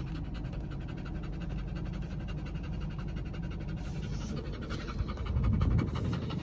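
A dog panting hard and fast in a steady rhythm, tired out after chasing a ball for about an hour. About five seconds in, a louder low rumble rises briefly under the panting.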